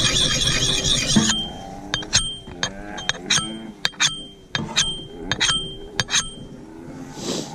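A metal hand tool striking stony earth: about a dozen sharp clinks, each with a short metallic ring, coming irregularly over about five seconds, after about a second of dense scraping.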